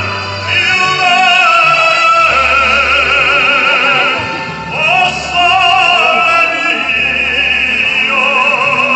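A male singer singing in operatic style, with long held notes and a wide vibrato, over instrumental accompaniment through a PA system.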